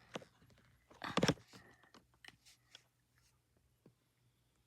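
Plastic Lego bricks being handled and pried apart: a quick cluster of clicks and rattles about a second in, then a few light clicks.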